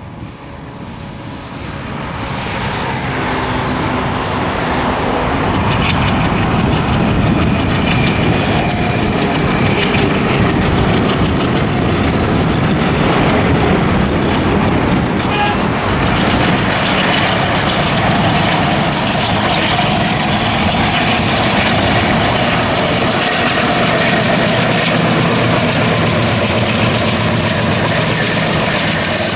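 ALCO diesel locomotive working under power as it hauls a passenger train past, its engine chugging and its wheels clattering over the rail joints. It grows louder over the first few seconds, then stays loud. A faint high whine rises slowly in pitch in the last third.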